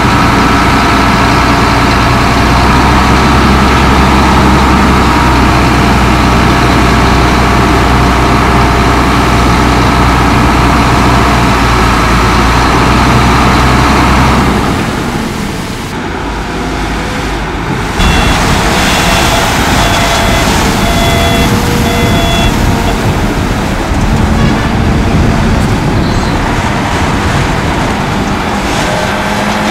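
Komatsu D58E crawler bulldozer's diesel engine running steadily. About halfway through it drops off for a few seconds, then comes back sharply. A few seconds of short high-pitched beeps, about one a second, follow.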